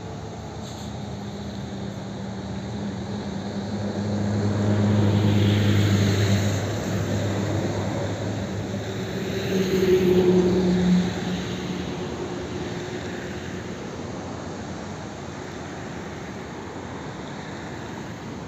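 Jet airliner, an Airbus A321, taxiing at low engine power: a steady jet rumble and whine that swells twice, about a quarter of the way in and again just past halfway, then eases back.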